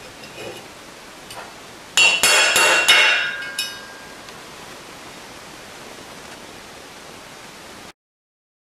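Quick series of about six hammer blows, starting about two seconds in, driving the steel centre pinion out through a brass clock gear on a steel block, each strike clinking with a metallic ring.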